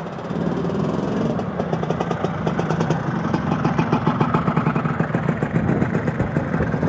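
Motor scooter engine running close by with a rapid, even beat, getting louder about half a second in.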